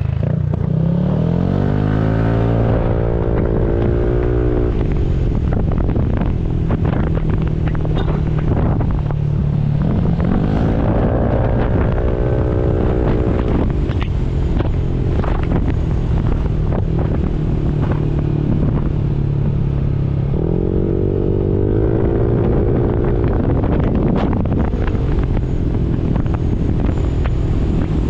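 Motorcycle engine heard from on board while riding. It revs up and levels off three times, about ten seconds apart, and runs steadily at speed in between, over a constant low rumble.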